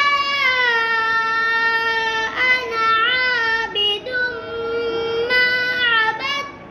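A child reciting Arabic letters and syllables from the Noorani Qaida in a chanted, melodic recitation style. The voice holds long drawn-out notes that glide in pitch, with short breaks between phrases.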